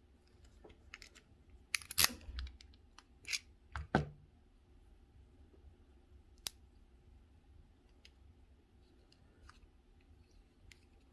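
Small metal clicks and knocks from handling a brass key and a Best SFIC lock cylinder in the fingers, several close together in the first four seconds with the loudest about two seconds in, then a single click and a few faint ticks.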